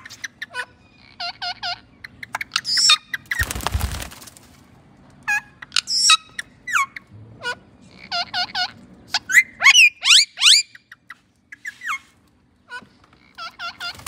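Indian ringneck parakeets calling with short chirps and squawks, including sets of three quick notes repeated twice and a run of sweeping upward screeches about ten seconds in. A brief rush of noise comes about three and a half seconds in.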